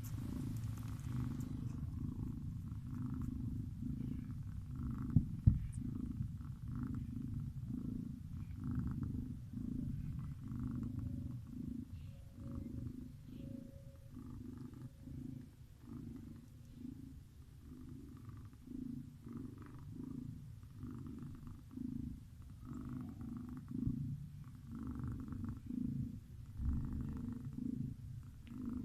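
Domestic cat snoring in a steady rhythm of low breaths, about three every two seconds. Two short sharp clicks come about five seconds in.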